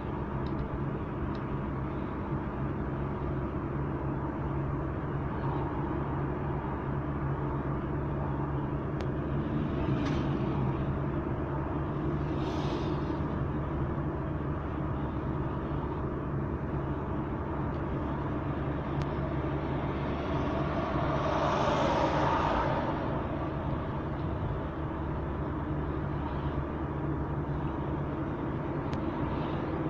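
Steady engine and tyre noise of a car driving at road speed, heard from inside the cabin. About two-thirds of the way through, a louder rush swells and fades with a falling pitch.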